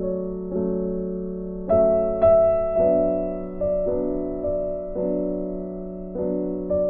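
Background piano music: slow chords, each struck sharply and dying away before the next, about one a second.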